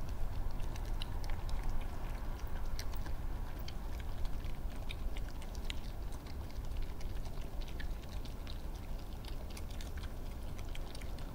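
Red foxes eating peanuts from a feeding tray: irregular crisp crunching clicks, over a steady low background rumble.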